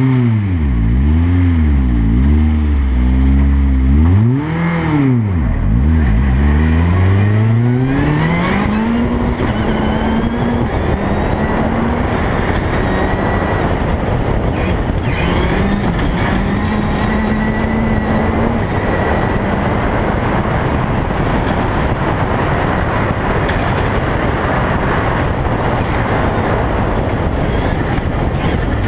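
Rally car at speed on a gravel stage, heard from a camera on its roof. For the first eight seconds the engine's pitch climbs and drops several times as the driver accelerates and lifts through the bends. After that a steady, loud rushing noise of wind and gravel covers the engine.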